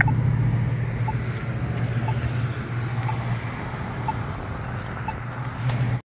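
Polara iN3 accessible pedestrian push button ticking its locator tone, a short pip about once a second, over steady road-traffic noise. The locator tone marks the button's position for blind pedestrians while the signal shows don't walk.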